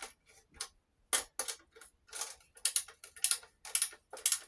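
Small hand ratchet clicking in short irregular bursts, about three a second, as it backs out screws.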